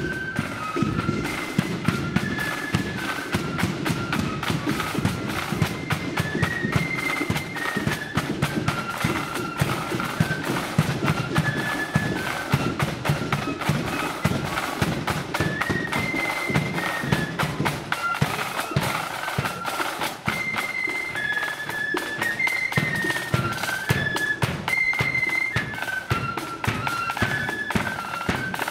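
Marching flute band playing a tune in unison, with side drums and a large bass drum beating a steady march.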